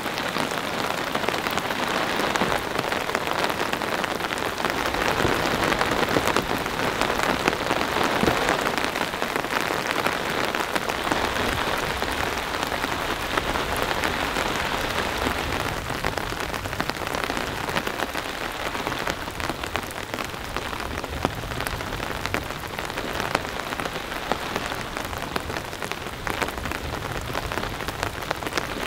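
Heavy rain falling steadily, a dense hiss of drops, a little louder in the first third and easing slightly later on.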